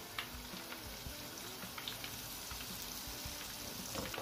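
Battered chicken pieces on skewers deep-frying in a pan of hot oil: a steady sizzle scattered with small crackles.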